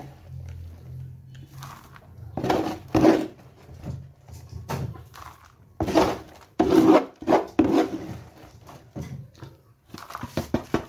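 A plastic scoop scraping and shovelling through a rice-bran and chopped-cabbage chicken feed mix in a plastic tub, in a run of irregular scrapes and rustles.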